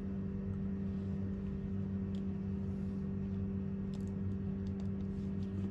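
Steady low machine hum, even throughout, with a few faint light clicks.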